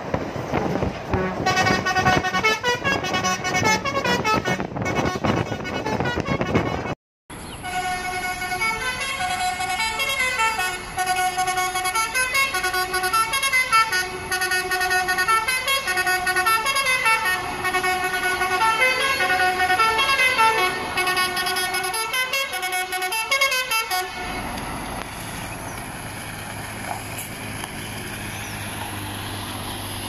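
A lorry's musical multi-tone air horn (a 'basuri' or 'telolet' horn) plays a tune of stepped notes. There are two passages: one from about a second and a half in, and a longer one after a brief break that stops about 24 seconds in. After it stops, only a quieter engine rumble and wind noise remain.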